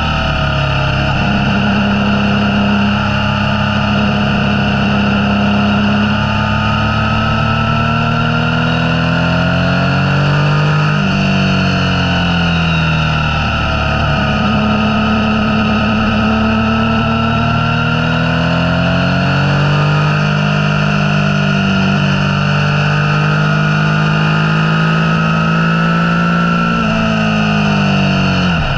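Motorcycle engine running under way, its pitch slowly rising and falling with the throttle. It drops sharply and climbs again about 11 seconds in and once more near the end.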